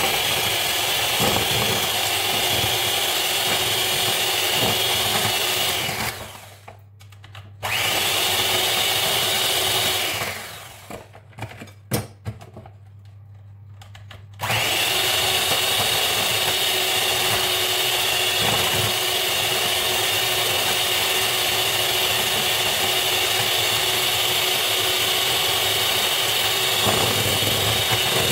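Electric mixer running steadily as it whips fresh cream. It stops briefly about six seconds in, winds down about ten seconds in, and starts again a few seconds later.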